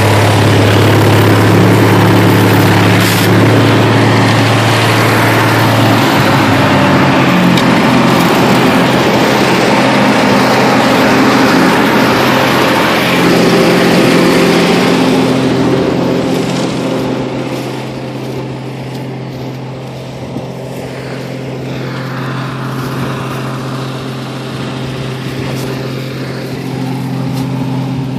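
Oliver 1800 tractor's six-cylinder engine running steadily. Its note shifts slightly about six seconds in, and it gets quieter a little past the middle.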